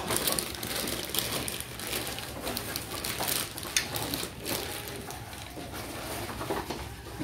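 Wooden spoons being picked up and handled, giving irregular light clicks and knocks of wood against wood.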